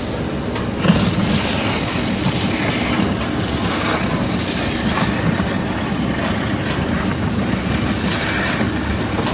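Industrial meat grinder running: a steady mechanical rumble with irregular clatter.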